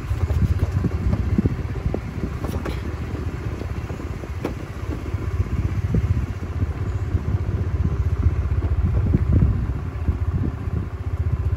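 A motor vehicle running, heard as a steady low rumble that flickers constantly.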